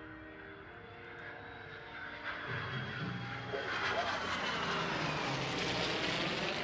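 Aircraft engines roaring as the P-51 Mustang and F-22 Raptor heritage formation makes a pass: the sound swells from about two seconds in and is loudest near the end, its tone sweeping as the aircraft go by.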